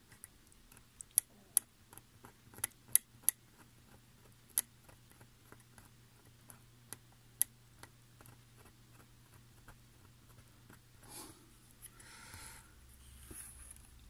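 A scatter of sharp clicks as a snap-off craft knife's blade is renewed. Near the end comes the dry scratching of the knife blade scraping the plastic insulation off a flexible flat cable to bare a copper track.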